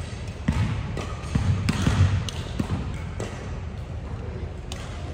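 A volleyball thudding in a gymnasium, bounced on the wooden floor and struck: a quick run of dull thumps over the first three seconds and one more near the end.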